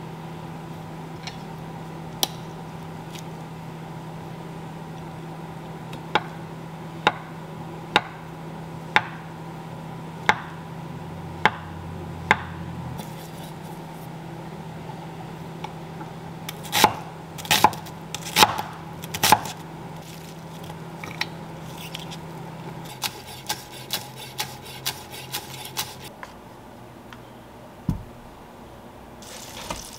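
Kitchen knife cutting on a wooden end-grain cutting board. It makes evenly spaced taps about one a second, then a few louder knocks and a quicker run of taps, all over a steady hum. There is a single knock near the end.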